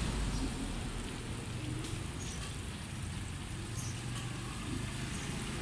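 Steady low rumble of street traffic, with a faint crackling hiss over it.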